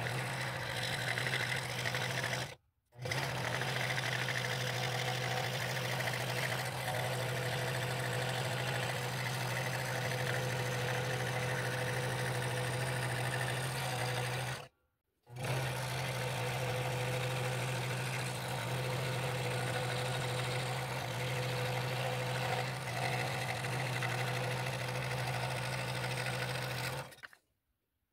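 Scroll saw running steadily, its reciprocating blade cutting through a glued-up ash and mahogany segmented bowl blank with a steady low hum. It cuts out abruptly twice for a moment, and stops about a second before the end.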